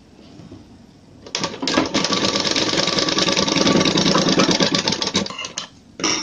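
Electric sewing machine stitching, a fast even rattle of the needle mechanism for about four seconds as joined fabric pieces are fed through to make a dori strip. It starts a little over a second in and stops shortly before the end, followed by a brief noise.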